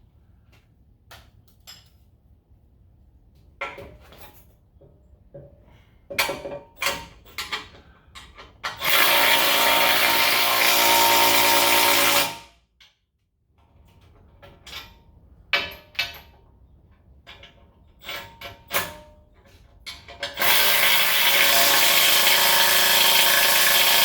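A handheld power tool runs twice, about three and a half seconds each time, driving the bracket bolts. Scattered metal clicks and knocks from the tools and hardware come before and between the two runs.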